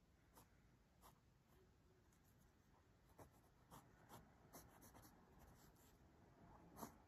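Pen scratching on paper in short, quick drawing strokes, faint, coming in a rapid run in the middle, with the strongest stroke near the end.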